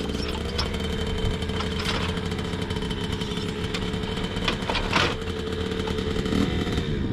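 An engine idling steadily, with several sharp clanks and knocks as a dirt bike is pulled off a hitch-mounted motorcycle carrier; the engine note falls near the end.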